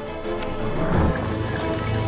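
Cinematic intro music with sustained tones, swelling to a low, louder peak about a second in.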